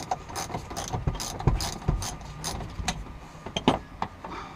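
Irregular sharp clicks and knocks of hands and tools working loose plastic interior trim pieces in an SUV's rear cargo area.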